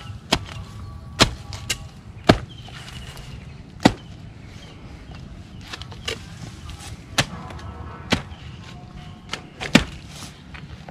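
Wooden-handled hoe chopping into soil and a banana corm, about ten sharp, irregular strikes, as a sucker is cut free from the parent plant's corm.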